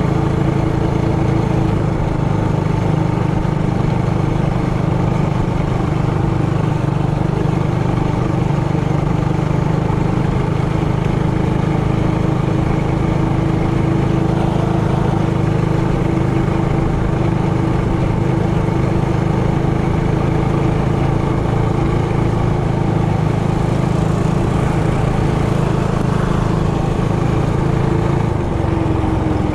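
Trailmaster Hurricane 200X mini bike's single-cylinder engine running at a steady, held speed while riding, dropping slightly in pitch near the end.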